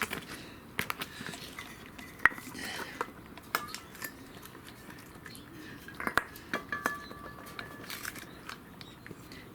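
A pet food dish clinking and scraping in irregular light knocks and clicks, with a thin squeak for about a second in the later part.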